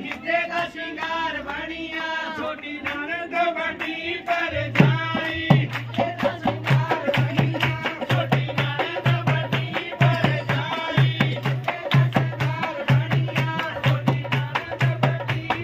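Punjabi wedding folk song: a voice singing over a steady drone, joined about five seconds in by a steady hand-drum beat.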